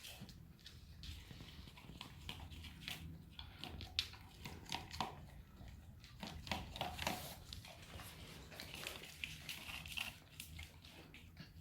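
A dog eating soft food: irregular smacking, chewing and licking sounds with sharp little clicks, the loudest about four seconds in.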